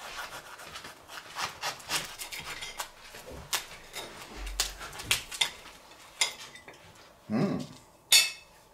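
Knife and fork cutting through a crispy toasted wrap on a china plate: scattered crackles, scrapes and clicks of the blade and crust, with a sharp clink of cutlery on the plate near the end as the loudest sound.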